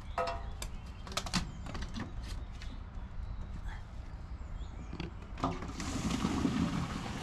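Clicks and knocks as the drain hose is handled at its fitting under a motorhome. About six seconds in, a steady rushing starts: liquid from the fixed waste holding tank beginning to drain through the hose into the dump-station drain.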